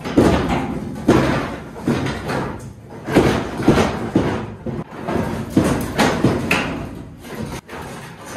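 Loose steel pickup bed side being yanked and shaken back and forth, banging and clattering in a string of irregular bangs, about one or two a second; the panel is still held on at some point.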